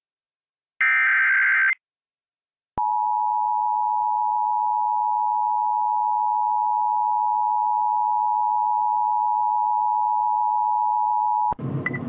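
Emergency Alert System broadcast tones: a harsh, screechy burst of SAME digital header data about a second long, then, after a second's pause, the EAS attention signal, two steady tones sounding together for about nine seconds and cutting off as a voice begins reading the alert.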